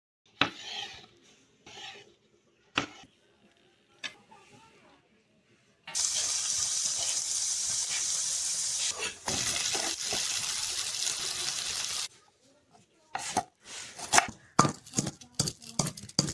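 A few separate knocks and clatters, then about six seconds of steady sizzling as strips of dough deep-fry in hot oil. Near the end come sharp, repeated knocks of a pestle pounding green chillies in a mortar.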